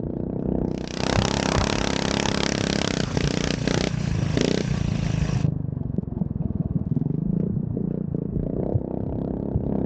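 Yerf Dog 3203 kart's ungoverned 420cc Predator single-cylinder engine running under load on a dirt track. A loud rushing noise rides over it from about a second in until a little past halfway, then the engine is heard alone.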